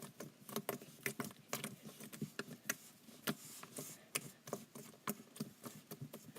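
Homemade fluffy slime being squished and worked by hand, giving many quick, irregular clicks and pops.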